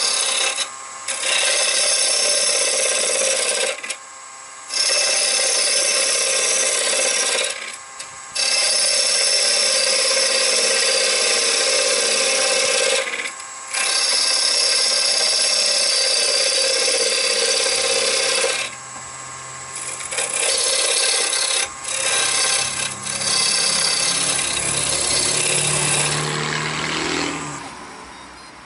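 Turning tool cutting a wooden blank spinning on a wood lathe: long loud scraping cutting passes, broken by several short pauses where the tool comes off the wood, with the cutting dying away near the end as the tool is lifted clear.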